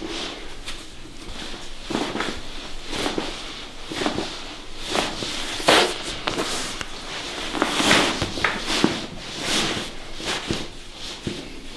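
Hands massaging a person's back and hip through thin clothing: an irregular run of rubbing, brushing and rustling strokes.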